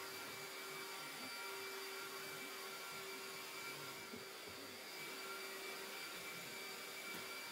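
Handheld vacuum cleaner running steadily on a carpet, a constant motor whine over the hiss of suction.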